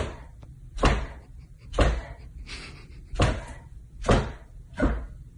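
A golden retriever's tail wagging and thumping against a hardwood floor, six knocks at roughly one-second intervals.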